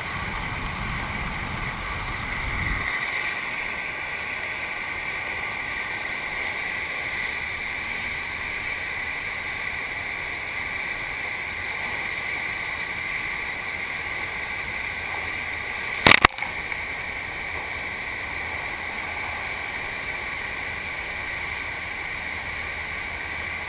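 Steady rush of water from a FlowRider-style sheet-wave machine, with one sharp click about sixteen seconds in.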